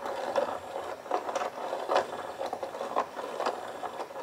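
Inkzoo whack-a-mole electronic cat toy running: its small motor whirring with irregular clicks and rattles as the wand pokes in and out of the holes at random.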